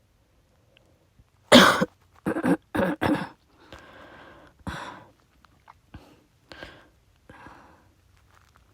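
A person with COVID-19, on the fourth day after testing positive, coughing: a hard cough about a second and a half in, the loudest, then a quick run of three or four more, with quieter breaths and small coughs near the end.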